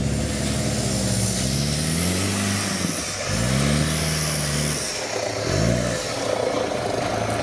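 Off-road 4x4 trial vehicle's engine revving in repeated surges, rising and falling in pitch three or four times as it works through the course.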